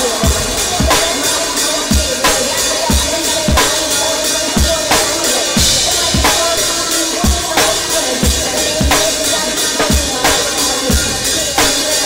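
A live band playing, with the drum kit up front: a steady kick drum about every two-thirds of a second, with snare and rimshot hits over a dense band sound.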